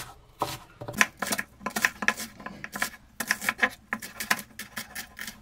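Kitchen knives chopping onion on a wooden cutting board: quick, uneven knocks of the blades on the board, several a second, with short pauses.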